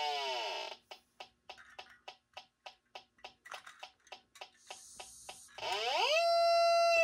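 Funtin Home FT-HG-03 handheld gas detector's electronic alarm. A falling tone dies away, then the unit ticks at about three to four clicks a second, speeding up as it senses gas, with a short hiss near the end of the ticking. Its tone then sweeps upward into a steady alarm, because the gas concentration is high.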